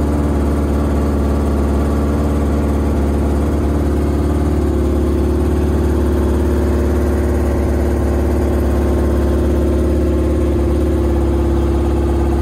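Yamaha Attak snowmobile's 1000 cc four-cylinder four-stroke engine idling steadily, its first run of the day.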